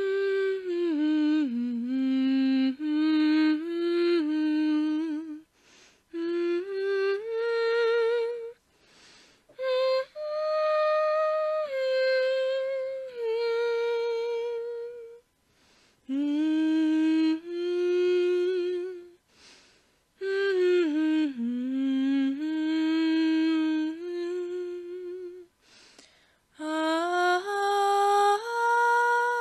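A person humming a slow, wordless melody in phrases, the pitch stepping up and down with a little vibrato, with short breaths between the phrases.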